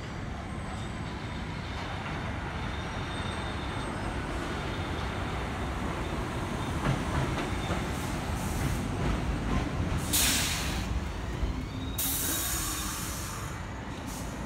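R62A subway train arriving at an elevated station: a steady rumble of wheels on the steel structure that grows louder as it draws alongside, with faint wheel squeal. Two loud air hisses come about ten and twelve seconds in as it comes to a stop.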